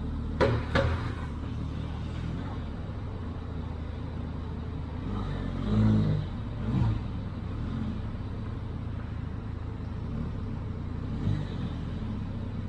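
Motor vehicle engine running steadily at a low hum, with two sharp knocks just after the start. About six seconds in there is a louder swell that falls in pitch, and a smaller one follows a second later.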